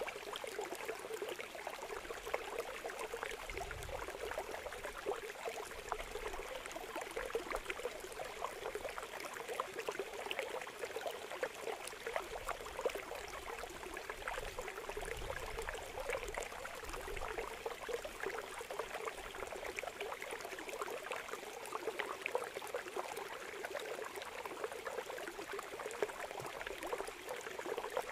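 Water pouring steadily through a gap in a bamboo-screen fish trap into a woven basket, with a dense patter of many small fish leaping and splashing in the stream.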